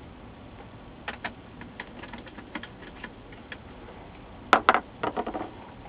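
Light scattered clicks and taps of a hand screwdriver turning screws into a monitor's sheet-steel RF shield, then two sharp clacks about four and a half seconds in as the screwdriver is set down on the bench, followed by a brief clatter.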